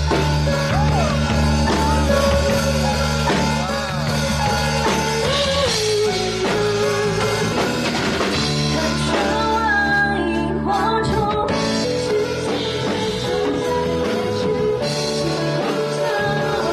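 Rock song with a singer over drum kit, bass and electric guitar.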